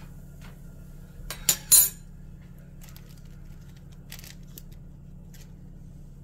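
Brief clinks and clatter of kitchen things being handled: two loud, sharp ones about a second and a half in, then a few softer taps, over a steady low hum.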